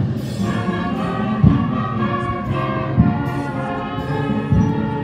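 Brass band playing slow, solemn music in held notes, with a drum beat about every second and a half.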